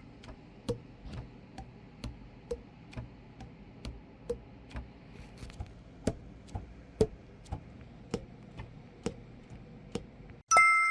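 Faint, regular clicking, about two clicks a second, each with a short ring after it.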